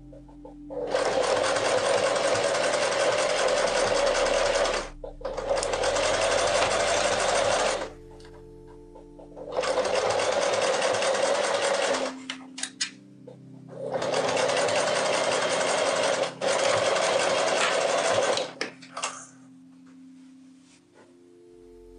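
Domestic electric sewing machine stitching through a jacket's fleece lining, running in five bursts of two to four seconds with short stops between them.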